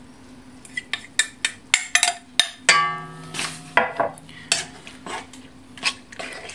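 Metal spoon stirring yeast-water into bread sponge in a stainless steel mixing bowl, clinking against the bowl in a run of sharp taps; one knock near the middle leaves the bowl ringing for about a second.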